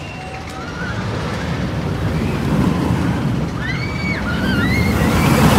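Steel roller coaster train rumbling along its track, growing louder as it passes, with wind buffeting the microphone. A run of short, high rising-and-falling cries comes about halfway through.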